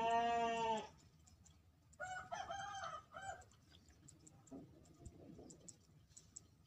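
Loud calls of an animal, heard twice: a long held call right at the start, then a shorter, broken one about two seconds in.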